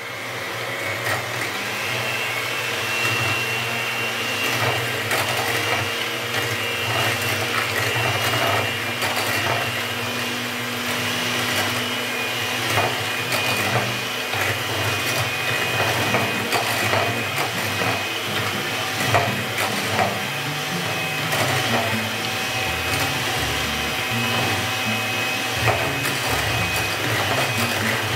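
Electric hand mixer running steadily with a motor whine, its beaters whipping a mix of instant coffee, brown sugar and ice water in a glass bowl, with occasional faint clicks.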